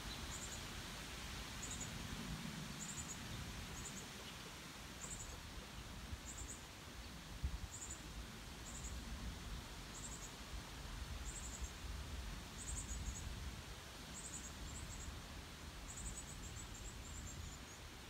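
Outdoor ambience with a low rumble, over which short, high chirps repeat about once a second, running together into a quick trill near the end. A single soft tap comes about seven and a half seconds in.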